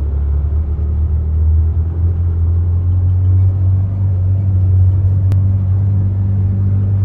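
A steady low rumble, with a single faint click about five seconds in.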